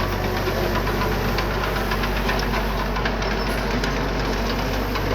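Diesel engine of heavy earthmoving equipment, a small bulldozer or dump truck, running steadily with a clattering knock.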